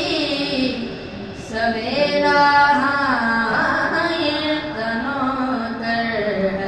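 A boy singing a manqabat, a devotional song in praise of the Ahl al-Bayt, into a microphone, holding long notes with gliding ornaments.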